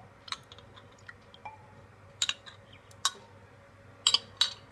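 A metal spoon clinking and tapping against a glass bowl in a handful of sharp, separate clicks, as soaked basil seeds are scraped out of it.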